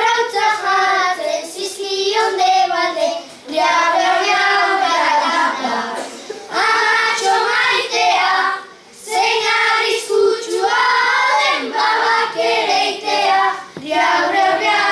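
Children singing a song together, in phrases of a few seconds with short breaks between them.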